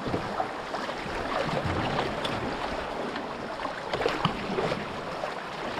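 Shallow river rapids rushing and splashing around a canoe as it runs through them, with a few light knocks scattered through the steady water noise.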